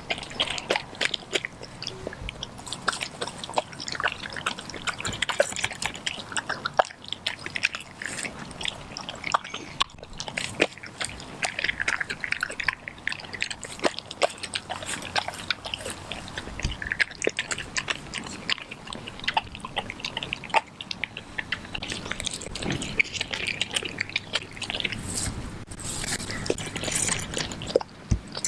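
A German Shepherd–Australian Kelpie mix dog licking and chewing a piece of raw turkey: wet mouth sounds with many irregular short bites and clicks.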